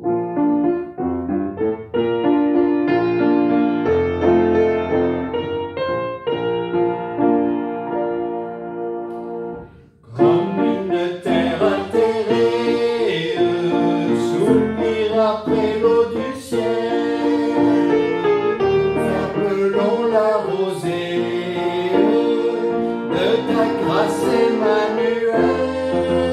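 Piano playing a hymn introduction in slow, steady chords; from about ten seconds in, a man sings the hymn with the piano accompanying.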